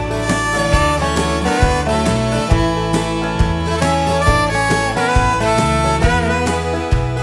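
Country song in an instrumental break: a harmonica carries the melody over acoustic guitar, bass and a steady drum beat.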